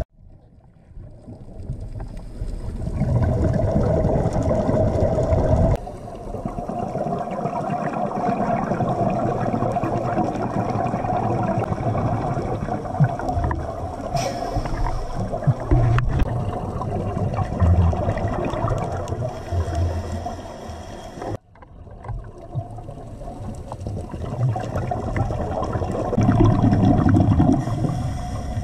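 Muffled underwater sound on a scuba dive: gurgling, rumbling bubbles from a diver's regulator over a steady hum. The sound swells and fades, and drops out briefly about three-quarters of the way through.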